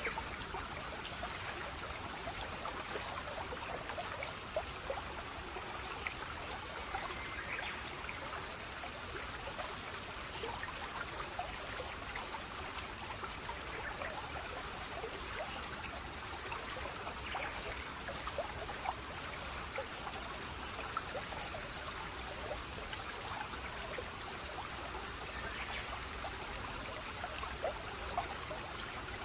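Water running and trickling steadily, dotted with many small splashes and drips.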